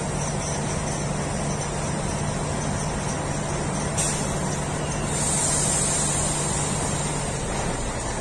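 Train at a station platform: a steady low hum and rumble that stops shortly before the end, with a click about four seconds in and a hiss of air soon after.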